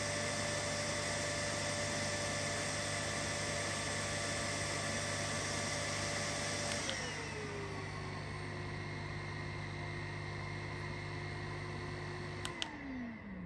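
Neakasa P0 Pro pet grooming vacuum running on its strong suction setting, a steady whining hum that sounds quieter than an ordinary vacuum cleaner. A button click about seven seconds in drops the motor to a lower speed. Another click near the end switches it off, and the motor winds down.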